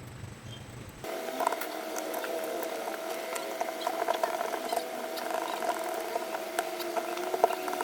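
Electric drill's motor running at a steady pitch after a switch repair, with many small clicks and rattles. It starts abruptly about a second in.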